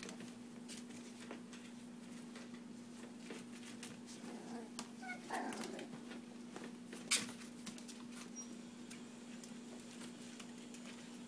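Puppies playing: scattered light clicks and scuffles of paws on a hard floor, with a short puppy yip about five seconds in and one sharp tap a little after seven seconds.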